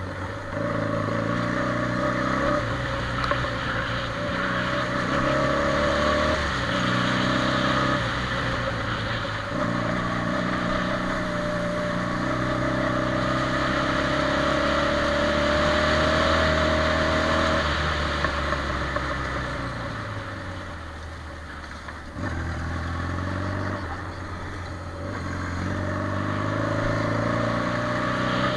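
Quad bike (ATV) engine running under changing throttle, easing off briefly several times and pulling again, longest about two-thirds of the way through, with a steady higher whine and a rush of noise over it.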